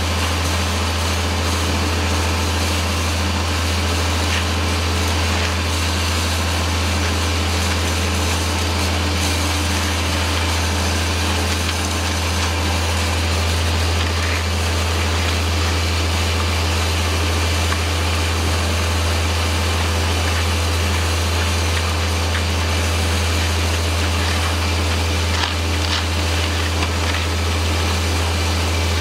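Concrete pump truck's heavy diesel engine running steadily at constant speed, a deep unbroken drone.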